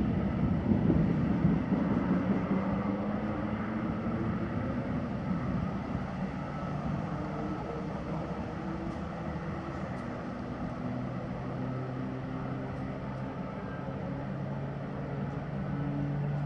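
Low engine hum of passing motor traffic, its pitch drifting slowly, over a steady background noise. It is louder in the first couple of seconds.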